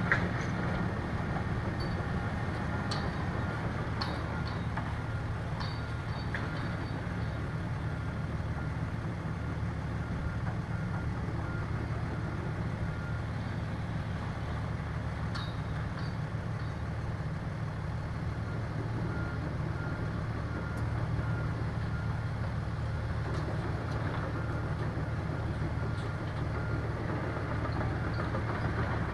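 Big Volvo EC700C crawler excavators' diesel engines running steadily under hydraulic working load, with a faint evenly repeating beep. A few short, sharp knocks come through, about 3, 4 and 15 seconds in, as the demolition shear and grab work the steel frame.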